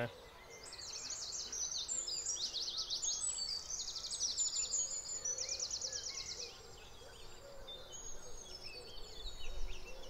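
Dawn chorus of many songbirds singing at once: fast, high trills and rattles, loudest in the first half and quieter after about six seconds in, with wood pigeons cooing low and faint underneath.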